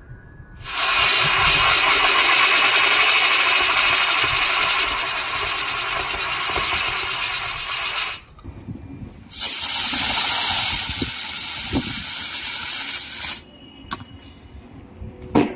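Two Diwali rocket motors glued to a fidget spinner hissing loudly as they burn and whirl it around. The hiss starts about a second in and cuts off suddenly after about seven seconds, a second spell of hiss follows for about four seconds, and a few sharp cracks come near the end.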